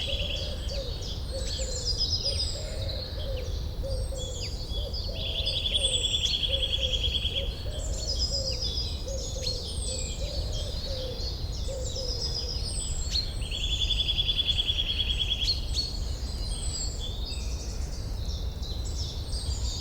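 Forest ambience of several songbirds chirping and calling, with a long buzzy trill twice, about 6 s and 14 s in, and a lower repeated call that runs through the first half and stops about 12 s in. A steady low rumble lies underneath.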